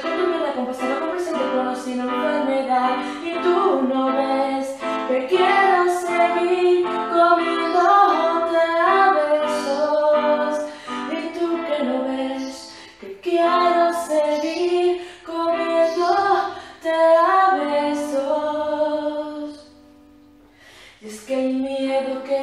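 Song music: a melodic line over accompaniment, which drops away briefly near the end before picking up again.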